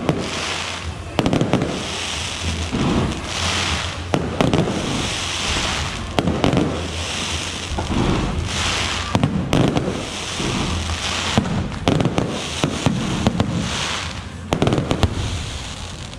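Aerial fireworks bursting overhead in quick succession, each bang followed by about a second of crackling from the glittering stars.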